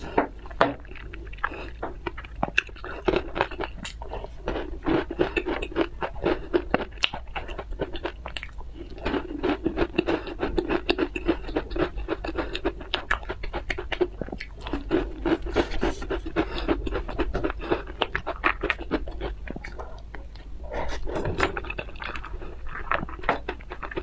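Close-miked chewing of a mouthful of candy, with many quick, irregular wet clicks and crunches of the mouth.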